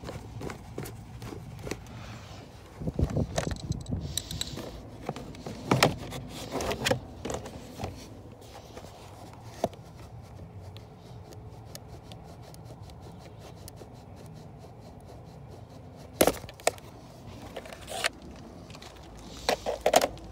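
Plastic under-dash trim panel of a Mercedes W163 being unscrewed and pulled free by hand: scattered clicks, knocks and rattles of plastic and a screwdriver, with louder clatter a few seconds in and again near the end.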